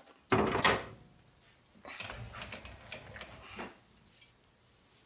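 Handling of a digital vernier caliper and metal tools at the lathe: a short loud scrape about half a second in, then a couple of seconds of lighter clattering and rubbing.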